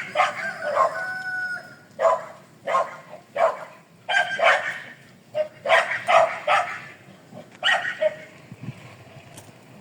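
A dog barking repeatedly in short barks, which stop about eight seconds in.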